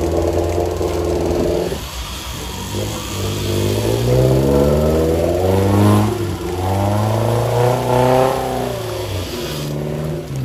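Engine of a lifted 4x4 off-roader revving up and down as it claws forward out of a deep mud rut, the pitch climbing twice to a peak and falling away near the end.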